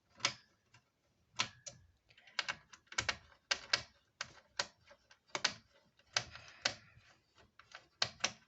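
Screwdriver working the spring-loaded screws of a Dell OptiPlex 3020's CPU heatsink: an irregular run of sharp clicks and short scrapes, about two a second.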